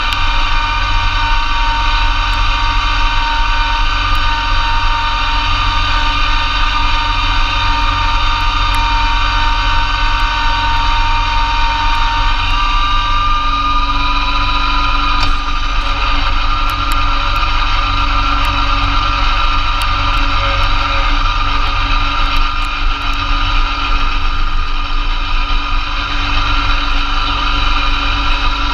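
Massey Ferguson GC2300 compact tractor's diesel engine running steadily under load, driving a PTO-powered Blizzard B48 snowblower through heavy wet snow, with a whine from the driveline. The pitch steps up slightly about halfway through.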